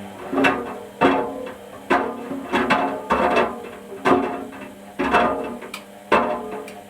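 Background music: plucked string notes struck about once a second, each ringing away, over a low held tone.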